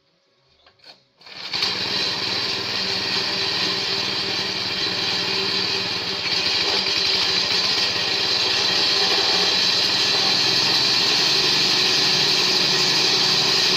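Multi-function grass chopper machine starting up about a second in and then running steadily at speed, getting a little louder partway through.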